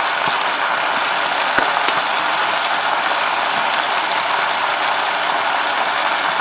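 Steady sizzling from chicken in the hot pot of a Cosori multi-cooker left on browning mode, with a couple of light clicks from a spice jar being shaken about a second and a half in.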